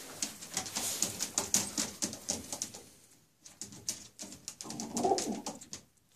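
Domestic pigeons stirring in a small loft: a quick run of rustles and scuffs over the first three seconds, then a louder, lower rustling burst about five seconds in as a pigeon is handled.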